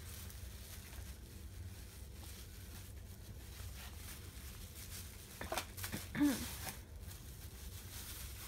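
Plastic wrapping crinkling and rustling as it is handled and pulled open, over a steady low hum. A brief hummed vocal sound comes about six seconds in.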